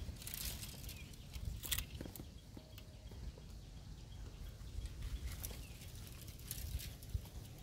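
Wind rumbling on the microphone, with scattered light rustling of leafy twigs and branches as a young macaque climbs through them.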